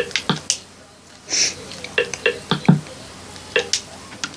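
Xbox menu navigation sounds: short, identical electronic blips in quick pairs and runs as the controller scrolls through the menus, with a brief breathy hiss about a second and a half in.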